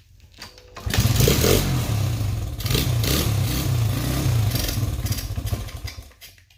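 1996 Honda XR100R's single-cylinder four-stroke engine catching on choke about a second in, running loudly for about five seconds, then fading out near the end.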